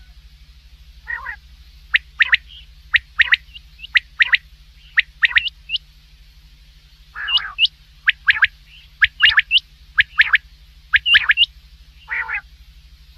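Common quail calling: sharp whistled notes in quick clusters of two or three, repeated roughly once a second. Three rougher, lower calls fall between them, about a second in, in the middle and near the end. A steady low hum runs underneath.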